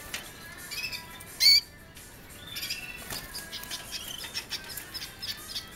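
Canaries calling and twittering: one loud, sharp call about a second and a half in, then a busy run of quick high chirps and trills.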